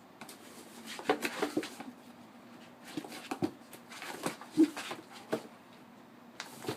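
A dog sniffling and making short noises in two bursts of quick sounds, with one more brief sound near the end.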